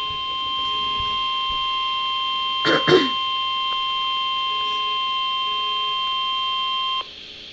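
Weather radio emergency alert tone: one steady, unbroken high tone, the 1050 Hz warning alarm tone that comes before a National Weather Service flood warning. It cuts off suddenly about seven seconds in. A short, louder noise breaks in about three seconds in.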